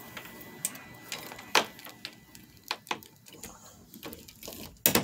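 Brass door knob set being pulled apart from a door: a scattering of sharp metallic clicks and knocks from the knobs and their spindle, the loudest a double knock near the end.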